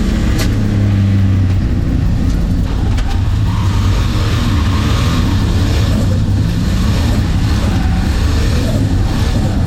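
Turbocharged Holden Ecotec 3.8-litre V6 of a VS Commodore running steadily at moderate revs, heard from inside the cabin as a constant low drone.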